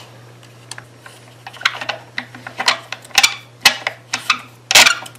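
T-handle hex key driving the screws that hold the lid on a Milwaukee router's motor housing: a run of irregular clicks and scrapes of metal on the housing, getting louder toward the end, over a steady low hum.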